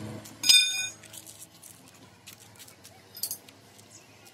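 Truck differential crown wheel and carrier set down into the steel differential housing: a loud metal-on-metal clank that rings briefly about half a second in. A fainter, lighter metal clink follows about three seconds in.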